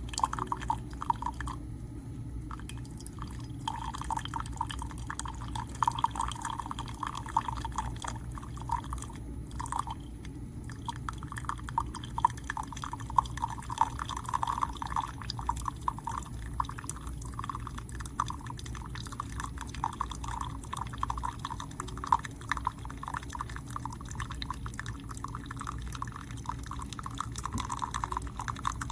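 Tastyle single-serve coffee maker brewing: a constant patter of coffee streaming and dripping into a cup, over a steady low hum.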